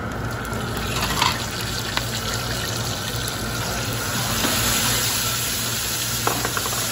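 Sliced onion, green onion and carrot sizzling as they are stir-fried in hot oil in a stone hotpot, with a few sharp knocks from the long wooden chopsticks and plate. The sizzle grows louder about four seconds in.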